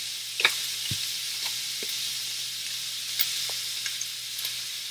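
Ground turkey sizzling in a hot cast iron skillet: a steady frying hiss with a few sharp clicks, the loudest about half a second in.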